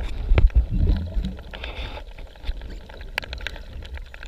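Water heard underwater: a low, muffled rumble of moving water with scattered clicks and bubbling, loudest in the first second.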